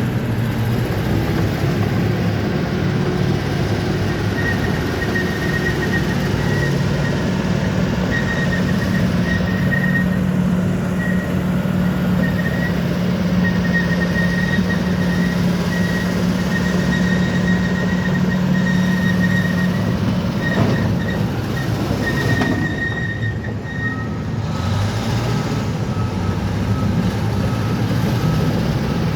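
Crawler bulldozer's diesel engine running steadily while its steel tracks squeal, a thin high squeal that comes and goes, dropping lower near the end.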